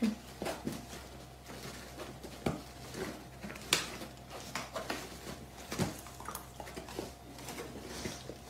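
A dog scratching and shifting about inside a woven basket: irregular scratches, rustles and sharp clicks as it digs and treads before sitting down.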